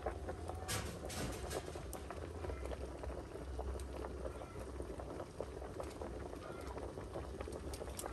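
Pot of sweet potatoes and maize boiling over a wood fire: steady bubbling with fine crackles. A few sharper clicks come about a second in.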